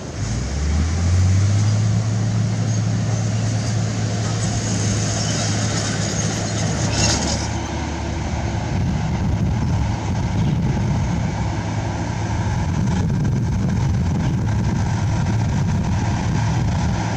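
Heavy construction machine's diesel engine running, revving up about a second in and then holding a steady note.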